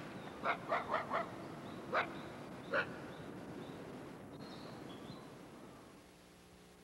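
A dog barking: four quick barks about half a second in, then two more spaced barks, and the barking stops after about three seconds.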